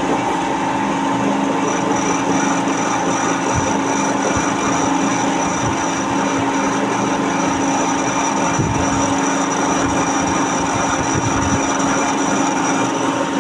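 Lathe running steadily, a constant machine hum with a steady high-pitched tone above it.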